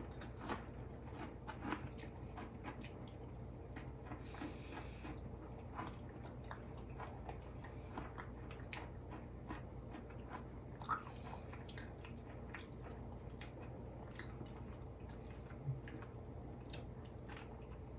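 Faint chewing of Firework Oreo cookies with popping-candy bits in the cream, many small scattered crunches and clicks, with a louder click about eleven seconds in.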